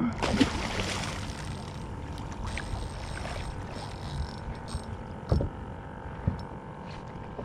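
Water splashing beside a stand-up paddleboard, loudest in a splash near the start as the hooked tarpon surfaces, then lapping water with two dull knocks about five and six seconds in.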